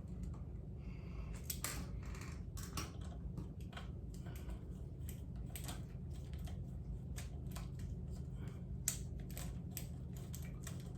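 Small irregular metallic clicks and taps of a hand tool working the crank arm pinch bolts as they are tightened, one a little louder about nine seconds in, over a steady low hum.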